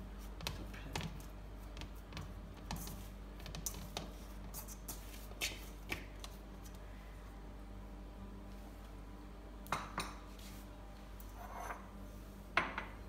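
Soft dough being kneaded by hand in a metal mixing bowl: scattered light knocks and pats against the bowl, with a few sharper knocks near the end. A low steady hum runs underneath.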